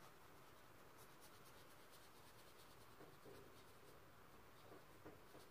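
Near silence, with faint rubbing strokes of paint being applied to a canvas.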